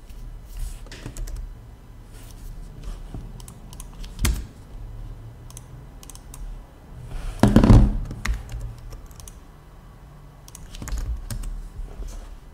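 Typing and clicking on a computer keyboard in scattered runs of short keystrokes, with a sharp knock about four seconds in and a louder thump a little past halfway.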